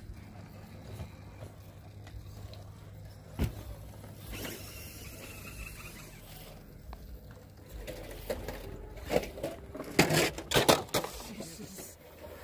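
Radio-controlled rock crawler working over bare rock: tyres and chassis scraping on the stone, with a cluster of loud knocks and scrapes about ten seconds in.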